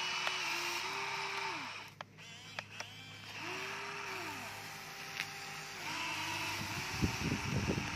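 Huina remote-control toy excavator's small electric motors whining as the boom, arm and bucket move, the whine starting and stopping and gliding up and down in pitch, with a few clicks about two seconds in. Near the end the bucket crunches into dry sticks and brush with a crackle of knocks.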